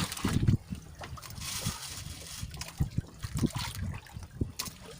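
Water trickling and splashing, with scattered low knocks.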